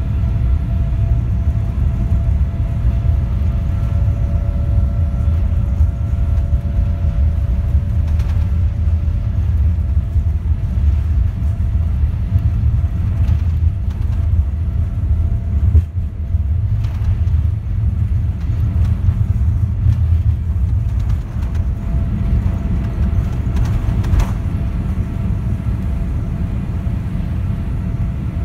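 Boeing 787-8 jet engines at takeoff thrust, heard from inside the cabin, with a heavy rumble from the wheels on the runway and a steady whine above it. The rumble eases near the end as the aircraft rotates and lifts off.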